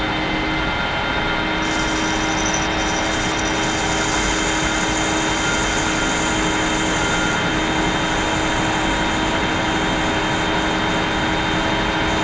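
Sharp metal lathe running with a steady motor and drive whine while the cutting tool takes a facing cut across the end of the stock. A higher hiss joins about two seconds in.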